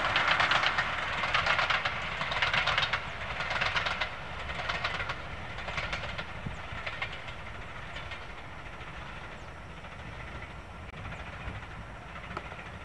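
Steam locomotive working hard with a train, its rapid exhaust beats and running noise fading steadily as it draws away.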